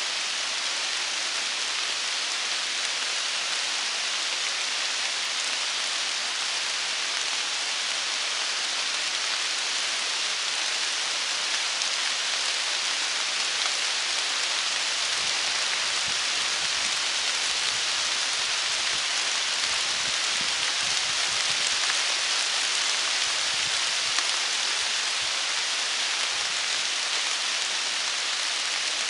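Steady rain falling on the trees and the leaf-covered forest floor, an even hiss with no let-up. A few soft low rumbles come and go in the second half.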